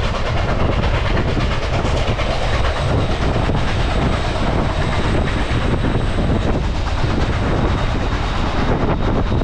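A train rolling on the rails, a steady loud rumble with wheel clatter.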